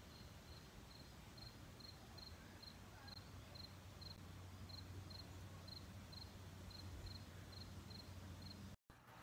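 Faint, evenly spaced cricket chirps, about three a second, over a low steady hum. The sound cuts out shortly before the end.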